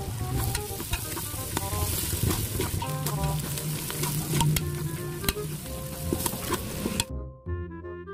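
Onions, garlic and spices sizzling in hot oil in a large aluminium pot while a metal ladle stirs them, scraping and clinking against the pot. The sizzling cuts off suddenly about seven seconds in, leaving only background music.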